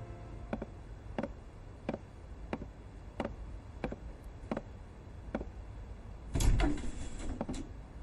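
Footsteps on a wooden floor, about one and a half steps a second, then a heavy wooden door opened near the end with a loud clunk and a short rattle.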